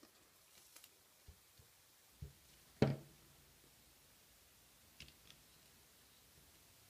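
Mostly quiet handling of construction paper cutouts being pressed onto a collage, with a few faint taps and clicks; the loudest tap comes a little under three seconds in, and a pair of faint ticks comes about five seconds in.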